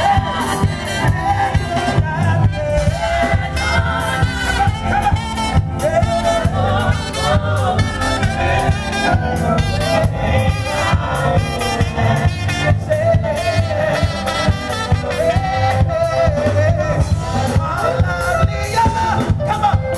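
Live gospel band playing: drum kit, bass guitar, lead guitar and keyboard together, with a steady drum beat throughout.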